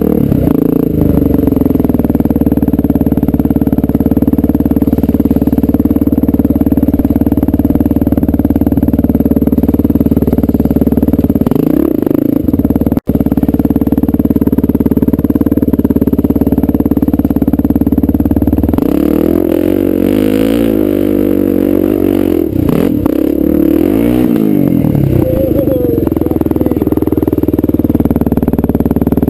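Honda XR400R's single-cylinder four-stroke dirt bike engine running at a steady pitch, with a momentary break in the sound near the middle. About two-thirds of the way through it revs up and down repeatedly for several seconds before settling back to a steady run.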